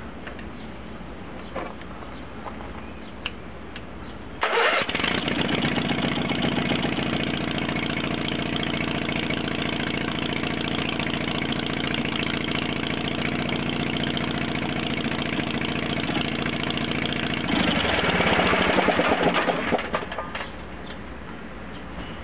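Onan engine of a Case 446 garden tractor catching almost at once, about four and a half seconds in, and running steadily. It runs louder for about two seconds near the end, then stops. It starts now that the starter solenoid has its negative feed, which cures the no-crank fault.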